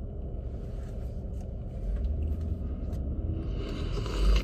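Car engine and road rumble heard from inside the cabin, growing louder about two seconds in as the car gets under way, with a short hiss near the end.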